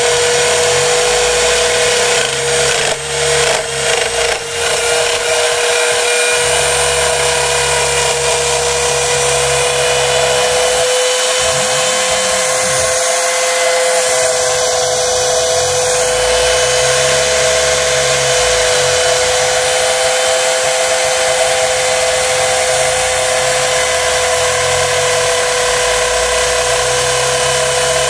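Home-built CNC router engraving plywood: the spindle and bit whine steadily at one pitch over the hiss of the cut. Beneath it, a lower drone changes every few seconds as the machine's moves change.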